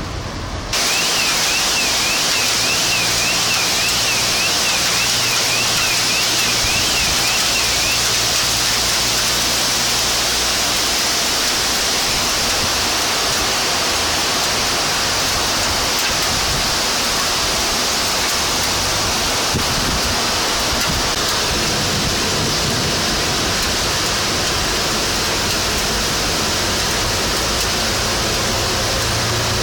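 Heavy rain mixed with hail pelting down in a steady, dense hiss that jumps louder just under a second in. For the first several seconds a high warbling tone rises and falls about twice a second behind it.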